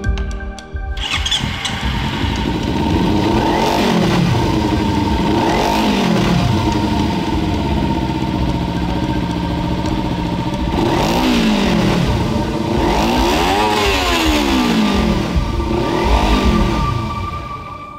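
Kawasaki Ninja 300's parallel-twin engine being revved on the stand, blipped about five times, the revs rising and falling each time. The sound fades out near the end.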